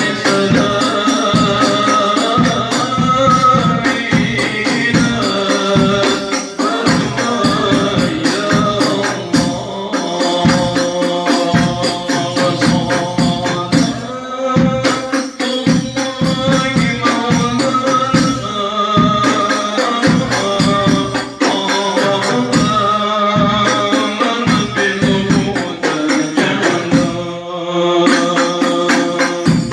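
A man singing a wavering, ornamented melody over steady beaten percussion.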